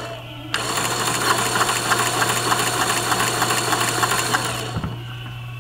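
A motorized Lego shredder running, its gear-driven cutters grinding small bits of aluminum foil with a dense, fast rattle. It drops out briefly at the start, then runs again and stops about four and a half seconds in.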